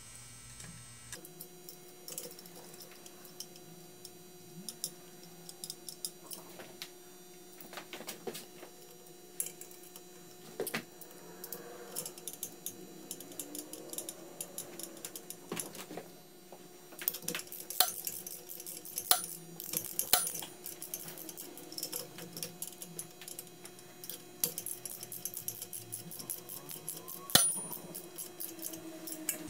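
Scattered small metallic clicks and clinks of bolts and hand tools at the rear crankshaft seal housing of a Jaguar XK6 engine block as the housing bolts are put in, with quicker runs of clicks in the second half, over a faint steady hum.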